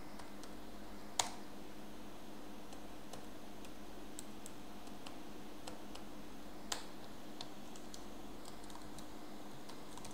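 Typing on a computer keyboard: scattered keystroke clicks, with two louder ones about a second in and near seven seconds, over a faint steady hum.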